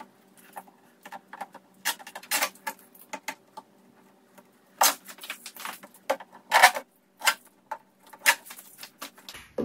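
Hands unpacking a new Princess air fryer oven: irregular clicks, rustles and scrapes of plastic and packaging as it is worked open. The loudest ones come a little before halfway and in the last few seconds.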